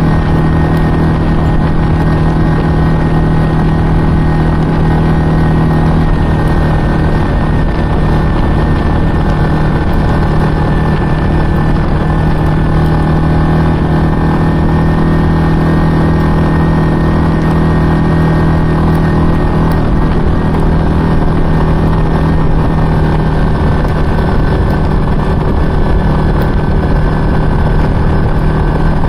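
ATV engine running steadily as the quad cruises along a trail, holding an even pitch throughout.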